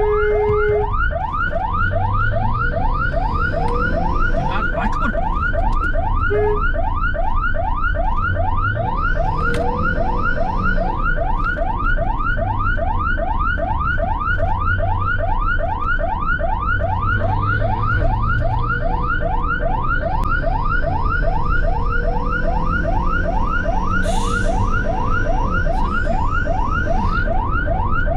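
Ambulance siren in a fast yelp, about three to four rising sweeps a second, sounding continuously over a steady low vehicle rumble.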